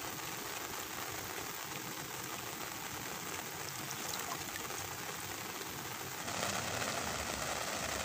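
Heavy rain falling on the surface of a lake, a steady hiss that gets louder about six seconds in.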